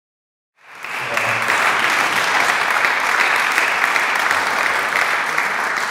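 Audience applauding, many hands clapping together; it starts suddenly about half a second in and keeps going steadily.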